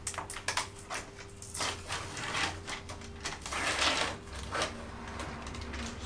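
Plastic film lid being peeled back off a hot microwave ready-meal tray: crinkling and crackling with scattered clicks, loudest about a second and a half in and again around four seconds in, over a faint steady hum.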